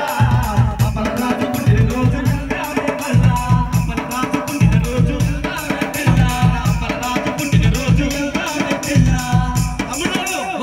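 Live folk band music: a large barrel drum beating a fast repeating rhythm, with quick even clicking of small percussion and a sung melody over it.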